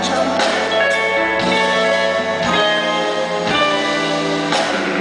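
Live band playing a slow soul ballad with no vocals: a hollow-body electric guitar over held keyboard chords, the chords changing about once a second.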